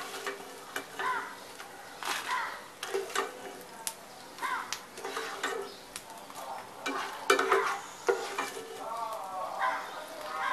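Slotted plastic spatula scooping fried edible gum out of hot ghee in a non-stick pan and onto a plate, with clicks and scrapes against the pan and plate over the sizzle of the frying ghee.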